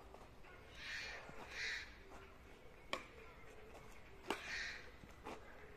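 A crow cawing: two caws in quick succession, then one more after a pause. Two sharp clicks in between are rackets striking a badminton shuttlecock.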